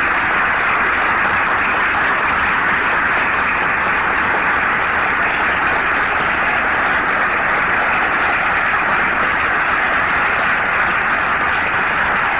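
A large audience applauding, many hands clapping in a dense, even patter that holds steady, on an old, thin-sounding recording.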